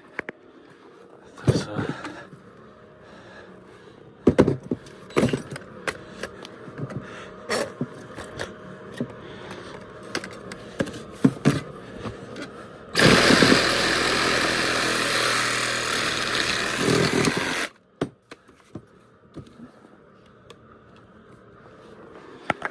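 Tools knocking and clattering against metal, then a loud power tool runs for about five seconds and cuts off suddenly, followed by a few light clicks.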